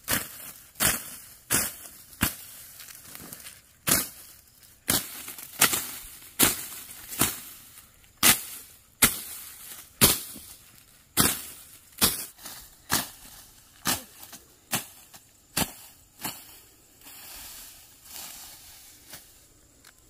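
Hand sickle slicing through rice stalks at the base: a steady run of short, sharp, crisp cuts, about one every three-quarters of a second, stopping about three seconds before the end.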